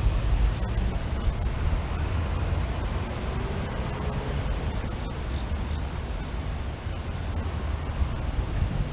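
SEPTA Silverliner electric multiple-unit commuter train running by, a steady low rumble with rolling noise.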